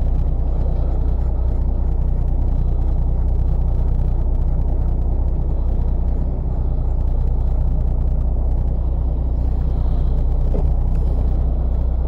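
Fishing boat's engine running steadily, a continuous low hum with water and hull noise.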